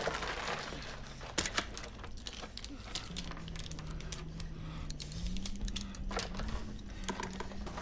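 Scattered metallic clicks and rattles of a rifle being handled and loaded, over a low steady drone that steps up in pitch about five seconds in.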